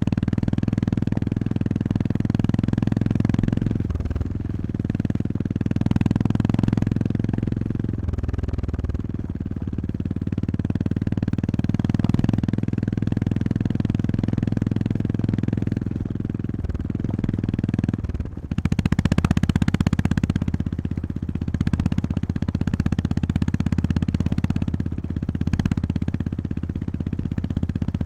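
Honda GB350S's air-cooled single-cylinder engine running while riding, at fairly steady revs. About two-thirds of the way through the revs dip briefly, then pick up again.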